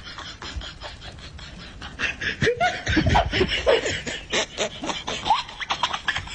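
People laughing in short, choppy bursts, heaviest from about two seconds in.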